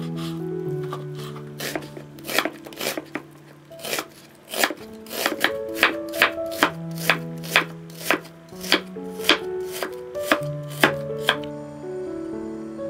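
Chef's knife chopping raw chicken breast and onion on a wooden cutting board: a run of sharp knocks, about two a second, growing louder and more regular partway through and stopping shortly before the end. Soft background music plays underneath.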